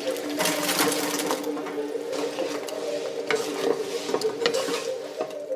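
Battered chicken pieces sizzling in hot frying oil, then sauced chicken being stirred with a utensil, with a few clicks. A steady low hum of held tones runs underneath.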